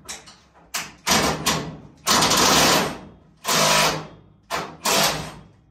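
Power drill run in short bursts, about eight of them, the longest lasting about a second, taking fasteners out of a dirt late model's body panels.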